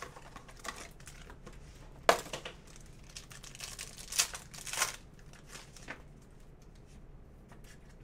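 A trading-card box and its foil-wrapped pack being torn open by hand: crinkling and tearing in a few sharp bursts, the loudest about two seconds in.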